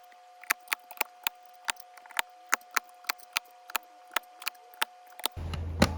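Sharp, separate clicks at an uneven pace, roughly two a second, as mechanical keyboard switches are pressed one by one into the keyboard and snap into place. Near the end a steady low hum comes in, and there is one more loud click.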